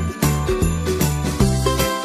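Christmas background music with jingle bells shaken on a steady beat over a bass line and melody.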